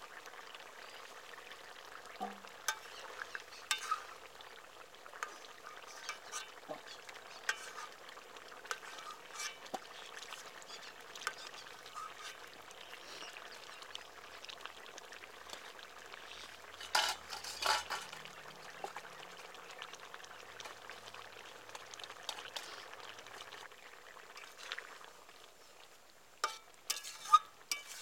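Vegetable curry simmering and sizzling in a steel karahi, with a steel spoon clinking against the pan and a steel bowl as gravy is ladled out. A cluster of scrapes and clinks comes about 17 seconds in, and more spatula stirring near the end.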